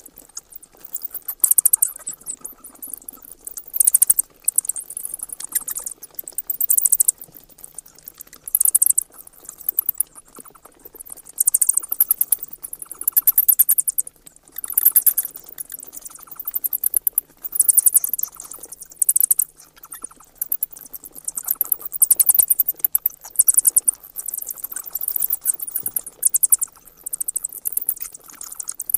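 Bats chittering: repeated bursts of rapid, very high-pitched clicks, one burst about every two seconds.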